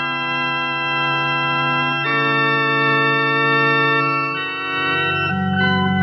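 Instrumental music of sustained organ-like keyboard chords, changing to a new chord about every two seconds.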